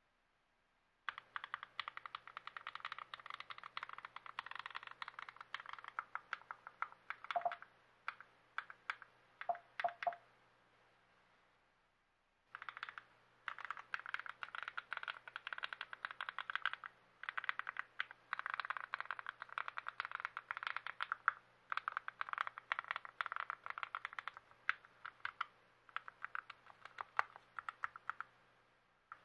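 Fast typing on a lubed and assembled TX66 custom keyboard, a dense run of key clicks. It stops for about two seconds near the middle, then resumes.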